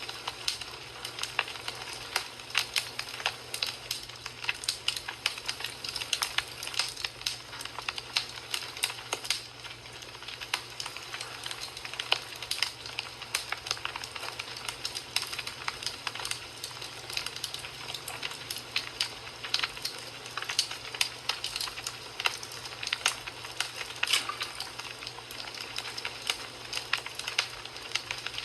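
Wood fire burning in a fireplace: a steady hiss with frequent irregular crackles and pops.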